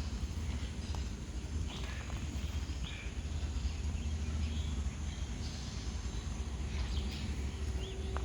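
Outdoor background: a steady low rumble with scattered short high chirps, like birds.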